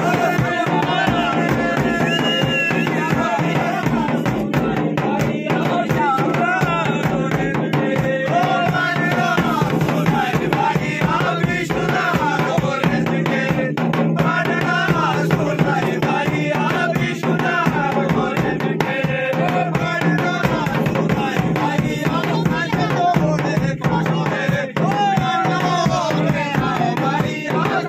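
Loud baraat dance music playing without a break: a quick drum beat under a wavering melody line.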